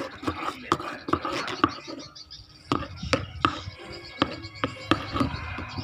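Spoon knocking and scraping irregularly against a container while stirring a thick toothpaste-and-baby-powder slime mixture.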